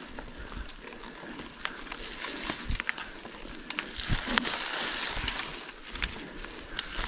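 Bicycle riding over a rough, wet dirt track: a steady rush of tyre noise, louder in the middle, with scattered knocks and rattles as the bike goes over bumps.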